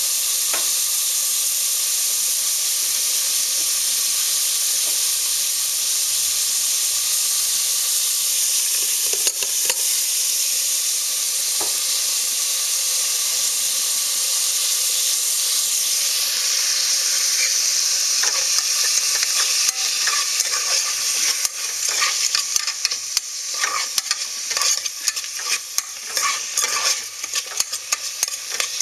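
Chopped onion, garlic and green herbs sizzling in oil in the nonstick inner pot of a Mondial Pratic Cook electric pressure cooker, a steady hiss. From about two-thirds of the way through, a plastic spatula stirring and scraping against the pot adds many quick clicks and scrapes.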